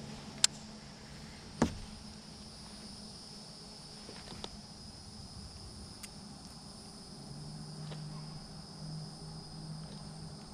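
Insects singing in a steady, high-pitched drone, with two sharp clicks in the first two seconds.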